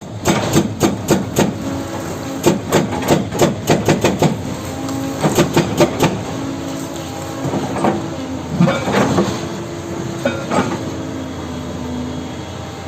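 Doosan excavator's diesel engine running under a steady drone, with three runs of sharp knocks at about four a second in the first six seconds, then a few creaks from the working machine.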